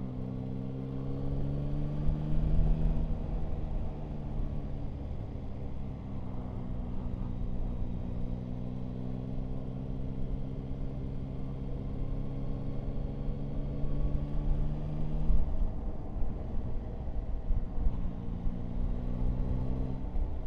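Yamaha Tracer 9 GT's three-cylinder engine running at a steady road speed, with low wind rumble on the microphone. The engine note holds steady, falls away for a couple of seconds about fifteen seconds in, then settles back.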